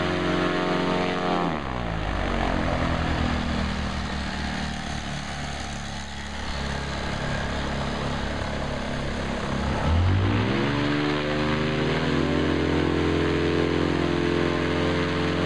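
Paramotor engine and propeller running at high throttle, dropping to idle about a second and a half in, then revving back up about ten seconds in and holding there.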